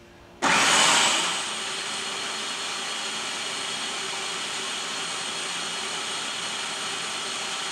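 Food processor motor switched on about half a second in, then running steadily as it blends garlic paste while oil is added very slowly to emulsify it into toum (Lebanese garlic sauce).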